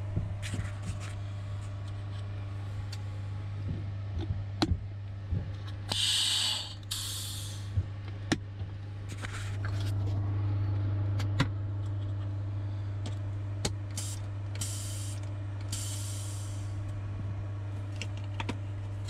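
Steady low electrical hum in a powered-up Phenom 300 cockpit with the engines not yet started. Scattered clicks of cockpit switches and controls being set punctuate it, along with a few short bursts of hissing.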